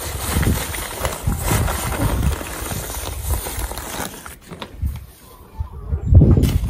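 Woven plastic feed sack rustling and crinkling as a plastic scoop digs out wheat bran, with irregular soft knocks; it quietens about four seconds in, then a louder bout of handling noise comes near the end.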